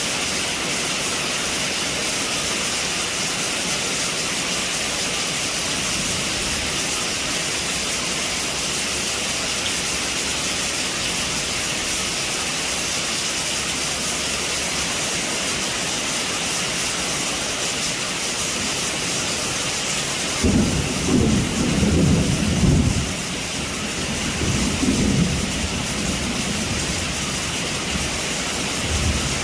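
Heavy rain falling steadily on a roof, an even hiss. About two-thirds of the way through, a low rumble of thunder sets in suddenly, swells twice over several seconds and dies away, with a brief further rumble near the end.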